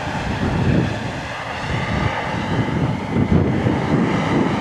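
Wind buffeting the microphone in irregular low rumbles over a steady engine drone.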